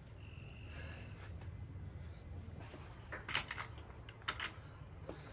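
Quiet outdoor background with a few short clicks and knocks about three to four and a half seconds in, from the motorcycle and its parts being handled.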